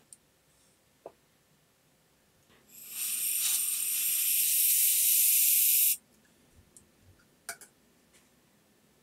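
One hissing spray burst of about three seconds from a hand-held nozzle aimed into the cassette deck's transport mechanism, building quickly and then cutting off sharply. There are a few faint handling clicks around it.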